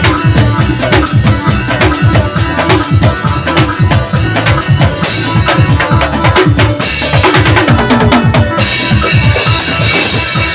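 Gondang-style music carried by fast, dense drumming. From about halfway, a high held melody line joins over the drums and grows stronger near the end.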